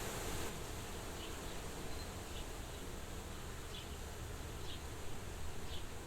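Soft wind blowing steadily at a farmhouse window, with faint short high chirps roughly once a second.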